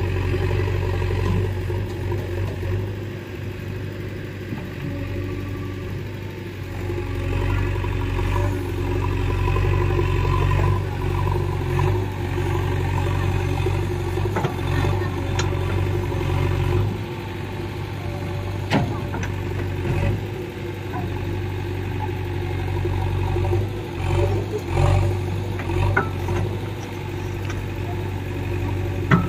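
Heavy diesel engine running at a steady low speed, its level rising and falling a little, with a few sharp knocks in the second half.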